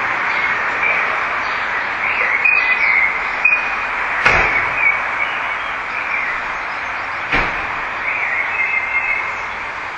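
Steady hiss-like background noise with a few faint short chirps and two sharp clicks, about four and seven seconds in.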